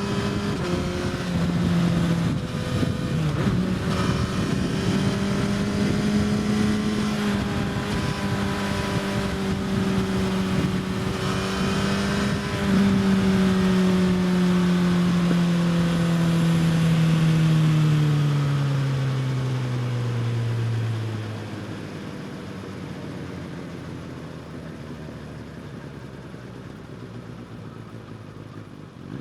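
Suzuki GSX-S1000 inline-four with an Austin Racing slip-on exhaust, running hard at steady high revs, with quick gear changes about a second and three seconds in. From about 13 seconds the engine note falls steadily in pitch as the bike slows, then drops to a much quieter low running after about 21 seconds.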